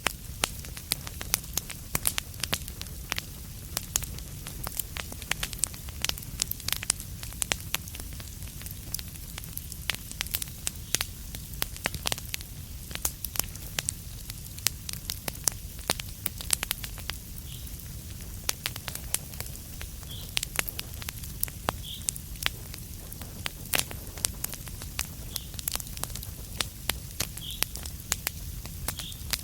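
Wood fire crackling in a fireplace: frequent sharp pops and snaps over a steady low rumble, with a few brief, faint high squeaks in the second half.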